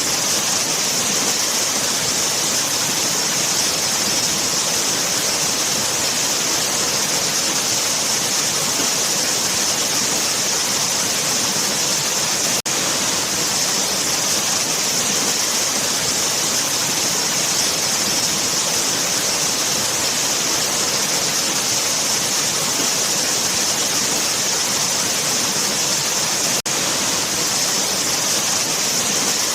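Waterfall: a steady, even rush of falling water with a bright hiss, broken twice by a momentary dropout, about halfway through and near the end.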